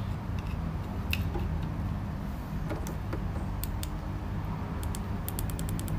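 Steady low hum of a small electric fan running, with a few scattered light clicks and a quick run of ticks near the end.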